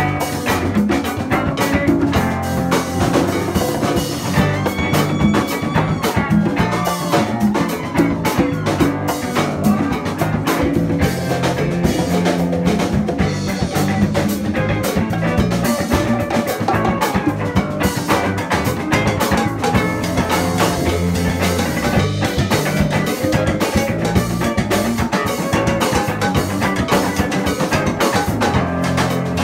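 A live band playing a rock song: electric guitars over a drum kit, with hand drums.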